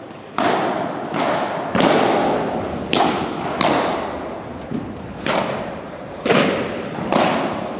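Padel rally: the ball struck by padel rackets and bouncing off the court, about seven sharp pops roughly a second apart, each ringing on in the echo of a large hall.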